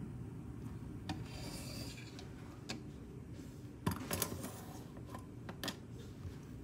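Ballpoint pen scratching across paper, then a few light knocks and clicks, loudest about four seconds in, as stationery on the desk is handled. A low steady hum runs underneath.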